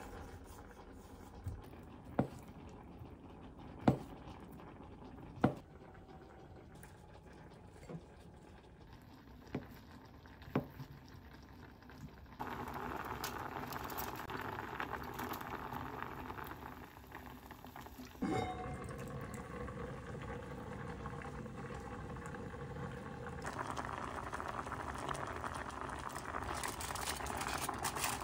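Several separate sharp knocks of a knife on a wooden cutting board over the first ten seconds or so. Then kabocha pumpkin simmering in a pot with a steady bubbling hiss, which grows louder in the last few seconds, while an aluminium-foil drop lid is fitted over it.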